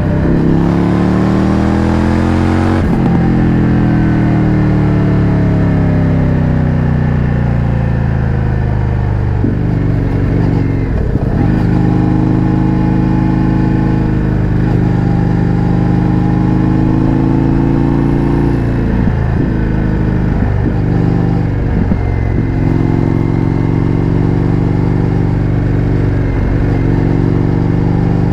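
Indian FTR 1200's V-twin engine through an Akrapovič exhaust, heard from the bike while riding: the engine note rises under acceleration for about three seconds, then eases off with a falling pitch. It then runs at a fairly steady cruise, with a few brief dips in the note later on, as at gear changes.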